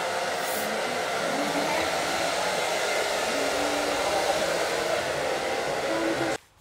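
Hair dryer blowing steadily, cutting off abruptly near the end. A short hiss of hairspray comes about half a second in.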